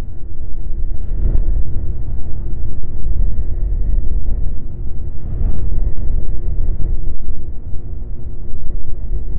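Snowmobile engine running steadily while riding a groomed trail, under a loud low rumble. Two brief hissy bursts come about a second in and again about five seconds in.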